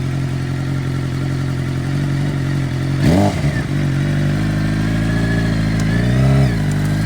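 2007 Suzuki GSX-R600 inline-four engine idling steadily, with a sharp throttle blip about three seconds in and a smaller rev near the end.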